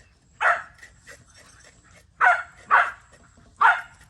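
A dog barking four times: one bark, then a quick pair, then one more, with faint clicking in between.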